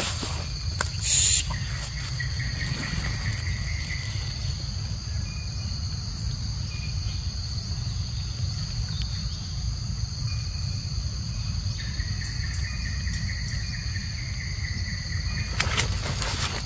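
Steady high-pitched drone of forest insects, unbroken throughout, over a low rumble. Faint drawn-out call-like tones come and go in two stretches, and there are short rustling bursts about a second in and near the end.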